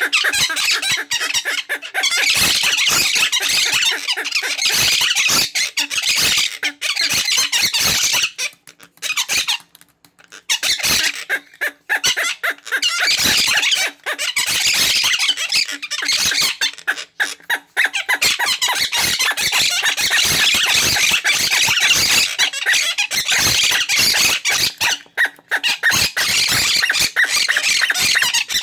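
Two monk parakeets screeching and chattering in rapid, harsh strings, furious at a toy rubber chicken held up to them, with a lull about a third of the way in.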